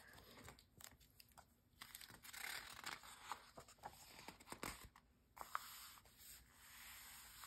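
A glossy magazine page is turned with a soft paper rustle and a few light clicks, then a hand rubs across the open spread to smooth it flat, a steady soft brushing hiss.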